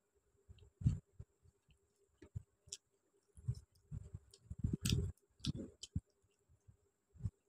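Fingers mixing rice into chicken curry on a steel plate: irregular wet squishes and clicks, busiest around the middle.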